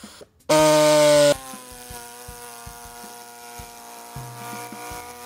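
Small pneumatic reciprocating saw cutting through a truck's front center grille support. It runs loud for about a second near the start, then carries on more quietly at a steady pitch.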